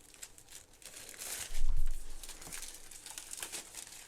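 Packaging crinkling and tearing as it is handled and pulled off a board game box, with a single low thump about halfway through.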